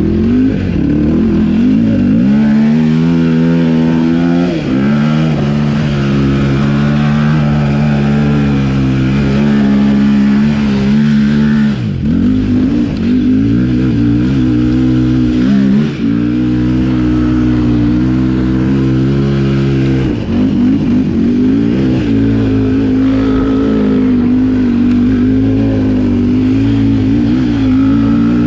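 Yamaha YFZ450 sport quad's single-cylinder four-stroke engine running hard under load, holding a steady pitch and several times dropping sharply in pitch, then climbing back up.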